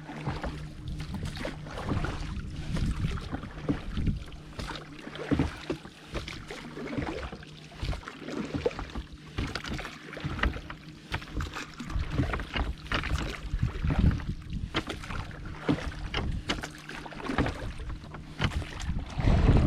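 Water splashing and slapping against the hull of a Porta Bote folding boat under way, in irregular crackles with no steady rhythm. Wind buffets the microphone, and a faint steady low hum runs underneath.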